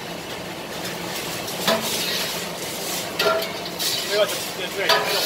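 A metal pot and utensils clink and knock against the rim of a large soup pot as food is tipped in, with several sharp metallic strikes in the second half. Under them runs a steady background din with voices.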